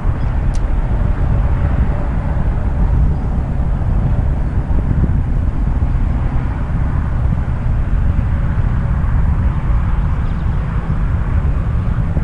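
Wind buffeting the microphone: a loud, steady low rumble that flutters without letting up.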